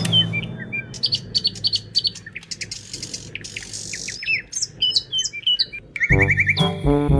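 Birds chirping: a rapid run of short, high, sweeping calls. Music comes in about six seconds in.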